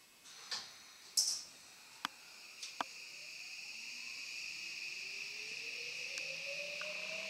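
Tokyo Metro Namboku Line 9000 series train starting off from a station, heard from inside the car. There are a few clicks and a short hiss about a second in, then a steady high inverter tone, and a motor whine that rises slowly in pitch and grows louder as the train accelerates.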